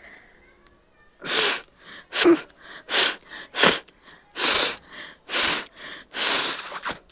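A woman's rapid series of forceful nose blows, sharp sneeze-like blasts of air out through the nose, seven strong ones about a second apart, with quieter short breaths in between.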